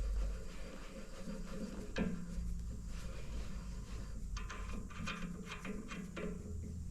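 Metal clicks and knocks from a metal lathe being reset for a new cutting tool and fed back in. There is one sharp knock about two seconds in, then a cluster of quick clicks a little past the middle, over a low steady hum.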